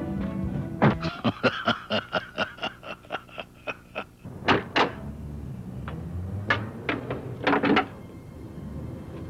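A fast run of sharp clicks, about five a second for some three seconds, followed by a few separate louder knocks and thunks.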